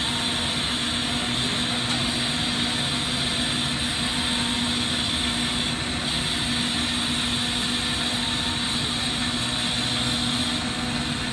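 Steady roar of a glassworking torch flame burning without a break, with a constant low hum under it.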